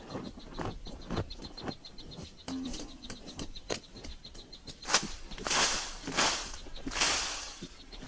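Hoes chopping into dry, hard-packed soil, a short knock about twice a second, over the steady fast trill of an insect. About halfway through come louder swishing hisses of loose soil, about one a second.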